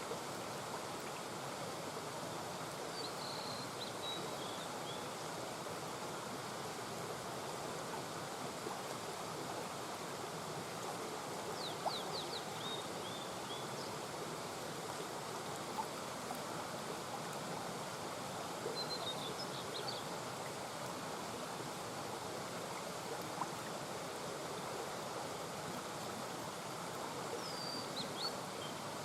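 Small mountain brook babbling steadily over stones. Short high bird chirps cut through it four times, near the start, about twelve seconds in, about nineteen seconds in and near the end.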